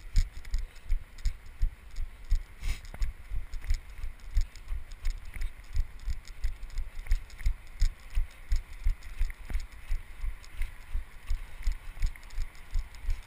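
Running footfalls jolting a body-worn GoPro camera: dull low thumps in an even rhythm of about three a second, with faint snow crunch on each step.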